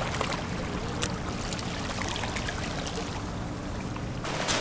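Small harbor waves lapping and trickling among shoreline rocks: a steady watery wash over a low rumble.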